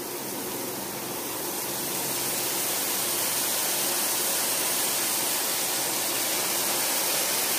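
Cabbage, peas and carrots sizzling steadily in hot ghee in a kadhai on a high flame, with soy sauce just added; the hiss grows a little louder over the first few seconds, then holds.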